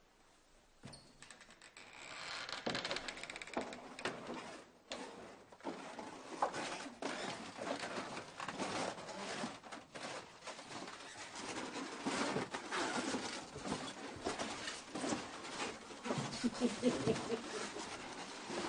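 Footsteps and shuffling of a group walking through a passage, an irregular run of steps and knocks starting about a second in.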